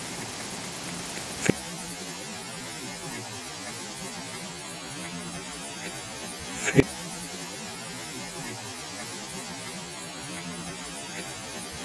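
Steady hiss with a faint low hum, the recording's own noise in a quiet spot, broken by two sharp clicks: one about a second and a half in, and another near seven seconds in.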